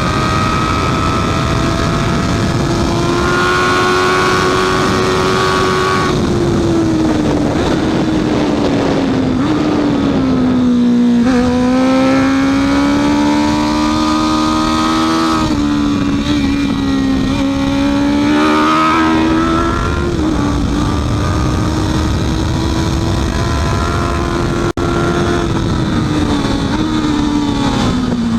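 Honda CB650F inline-four engine running hard at high revs, its note climbing under acceleration and falling back several times, with a dense rush of noise underneath.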